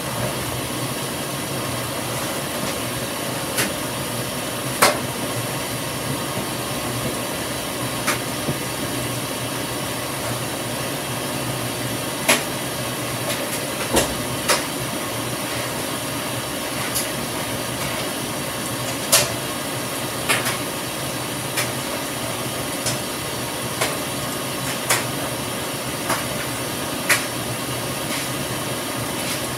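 Top-loading washing machine filling its tub: a steady hiss of water running in, with sharp clicks every second or two.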